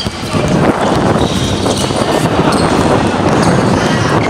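Basketballs bouncing on a hard court as players dribble, a run of short impacts.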